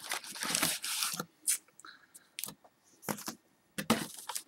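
Cardboard trading-card box being handled and opened by hand, its flaps scraping and crinkling as the card packs are pulled out. Dense rustling for about the first second, then scattered short rustles and taps.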